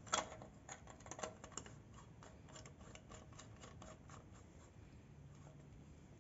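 Small plastic clicks and scraping from an opened LED bulb turning in its plastic screw lamp holder: a few sharp clicks, then a quick run of faint even ticks, about three or four a second, that stops about four seconds in.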